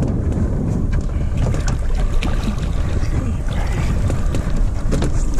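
Wind buffeting the microphone on an open boat, a steady low rumble with a few light knocks.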